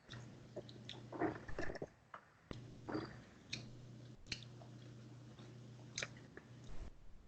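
Close-up mouth sounds of someone chewing food: scattered soft wet clicks and smacks, with a faint steady low hum underneath.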